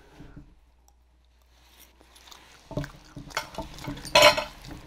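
Someone eating soft food with the mouth close to the microphone: sporadic wet chewing and lip-smacking. It is quiet for the first couple of seconds, then there is a run of mouth noises with a louder one about four seconds in.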